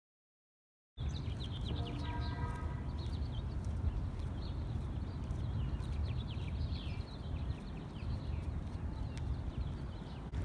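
After a second of silence, birds chirping over and over in short, quick calls above a steady low rumble. A brief pitched tone sounds about two seconds in.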